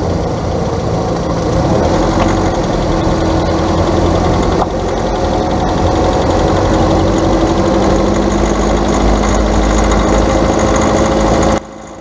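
Car engine running with a continuous, rapid ticking ('clic, clic, clic') from the top of the engine: out-of-adjustment valves or lifters in the valve train. Heard from inside the car, it cuts off abruptly near the end.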